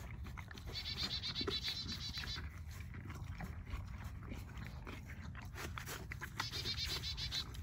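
A horse munching grain feed from a rubber tub: soft crunching of the grain and lips and muzzle working in the tub. Twice, a rapid high trill of a small bird sounds in the background, first about a second in and again near the end.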